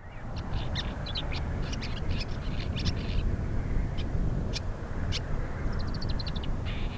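Woodchat shrike singing: a dense run of short high notes for the first three seconds or so, then a few single notes, and a quick series of about ten notes near the end. A steady low rumble runs underneath.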